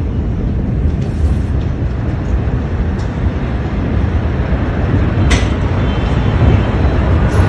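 Deep, steady rumbling roar from a massive ammonium nitrate explosion and its rising cloud. A sharp click comes about five seconds in.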